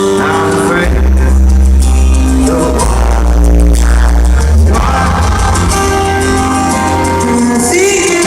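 Live pop music played loud through arena speakers, with heavy bass, sustained instrument notes and a sung voice coming in at moments, recorded with poor, distorted sound.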